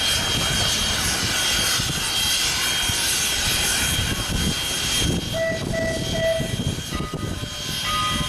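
Gusty wind on the microphone over steam hiss, then the whistle of Canadian National 89, a 2-6-0 steam locomotive, gives three short toots about five seconds in, followed near the end by a steady chord of several notes as the whistle is held.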